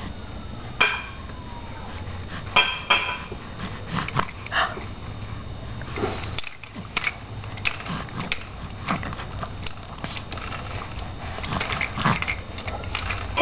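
A baby making short, irregular spluttering mouth noises: blowing raspberries, lips and spit buzzing in brief bursts with gaps between.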